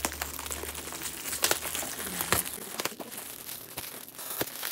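Clear plastic bag crinkling and rustling as hands pull it open around a boxed package, with a few sharp crackles.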